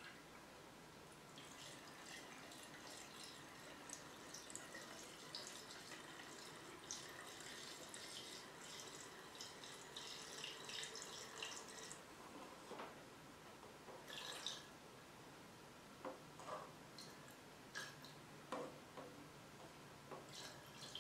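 Faint trickle of 25:1 two-stroke fuel mix being poured from a small plastic bottle into a chainsaw's fuel tank, with a few light clicks and knocks in the later seconds.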